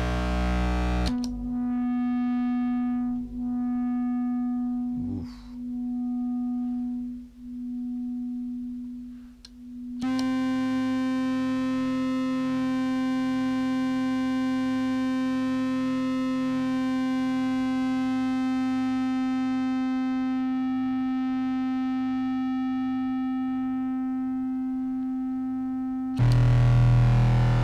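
A contrabass clarinet note is frozen by a Superego+ sustain pedal and fed through a Fender Shields Blender fuzz, giving a distorted held drone. For the first ten seconds it swells and dips about every two seconds, the shifting internal rhythm of the sustain with its decay set short of infinite. It then holds as a steadier drone rich in overtones, and near the end changes to a lower, louder tone.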